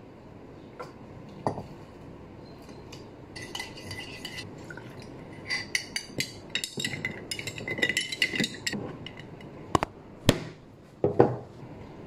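Glass, ice and a metal spoon clinking in a glass mason jar as iced coffee is poured and mixed, with a run of light clinks through the middle and three sharp knocks near the end.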